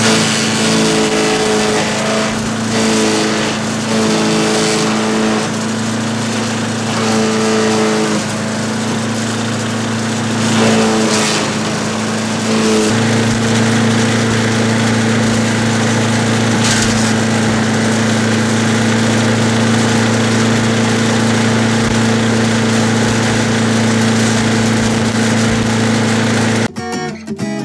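Small gas engine of a wood chipper-mulcher running steadily at speed, with a second droning tone coming and going for the first dozen seconds, then running evenly. It cuts off abruptly near the end.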